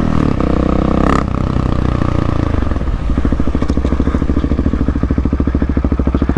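Motorcycle engine running as the rider rolls off the throttle: its pitch falls over the first few seconds, then it settles into an even, rapid thumping idle as the bike slows.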